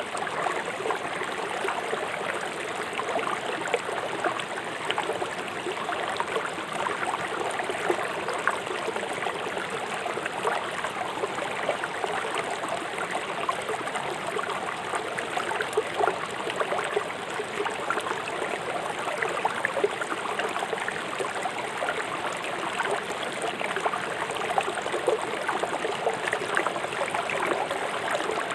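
Fast-flowing river water rushing and splashing over stones, a steady continuous rush with many small splashes and gurgles.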